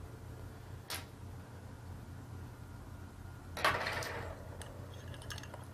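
Hand work on metal parts: a single click about a second in and a short scrape around three and a half seconds in, with a few faint ticks after, over a steady low hum.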